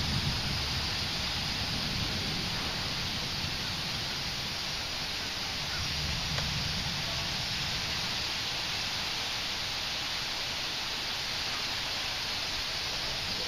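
Steady rain falling, a constant hiss, with low rumbles swelling near the start and again about halfway through.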